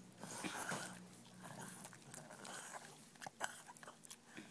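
Pug chewing and gnawing slowly at a hand-held treat: faint, soft chewing with a few sharper bites or crunches about three seconds in.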